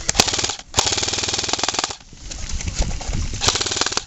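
Airsoft rifles firing full-auto at close range: two long bursts of rapid, even clatter, the first about a second in and the second starting near the middle.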